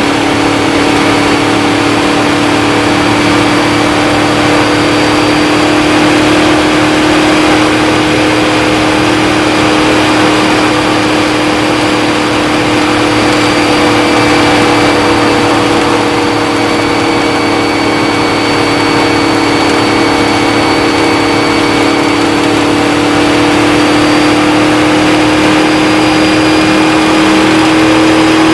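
Indy-style open-wheel race car's engine running hard and steady at speed on the oval, heard from on board in the cockpit. The engine note is loud and its pitch creeps slowly upward.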